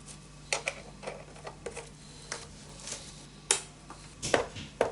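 Irregular small clicks and knocks, about seven, as parts are handled and fitted back onto a BOSS RC-505 loop station during reassembly.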